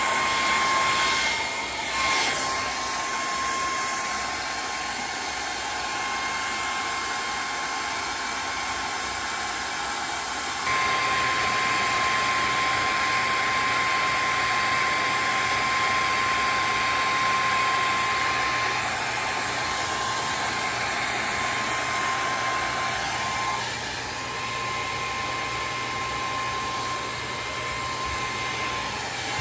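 Electric heat gun blowing steadily, a rushing air noise with a steady whine. It gets louder and picks up a low hum about ten seconds in.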